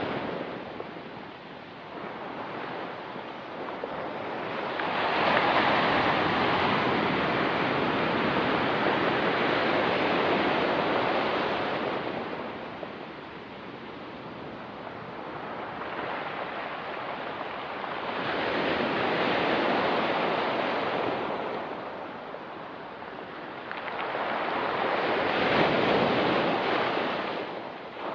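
Ocean surf washing onto a rocky beach: three slow swells, each rising to a long rush and then fading, with a light wind in between.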